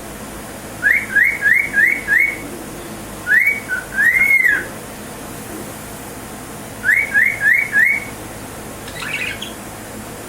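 Pet cockatiel whistling: a run of five quick rising notes, then a rising note and a long up-and-down note, then four more quick rising notes, with a faint short call near the end.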